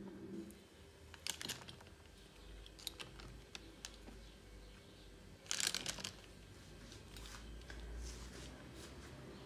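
Pizza-cutter wheel rolling through puff pastry on parchment paper: scattered soft clicks and crinkles, with a louder cluster of clicks a little past halfway.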